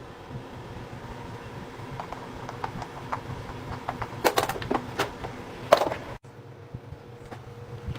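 Scattered sharp clicks and taps over a steady low hum, most of them bunched together about four to six seconds in.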